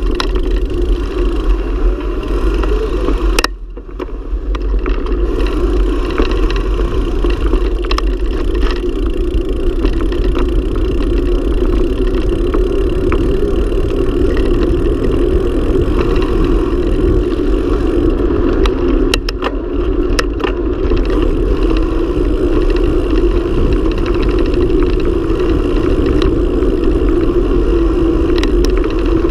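Steady wind noise on the microphone of a camera riding a mountain bike fast down an asphalt road, with tyre and road rumble and scattered clicks and rattles from bumps in the surface. The noise drops briefly about three and a half seconds in.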